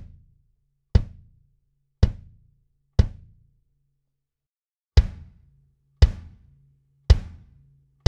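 Single drum strokes on a kit, mainly the snare, played about once a second with a one-beat pause in the middle. Each hit is followed by a low ring. This is the raw, unprocessed close-miked multitrack recording of the kit, full in the low end.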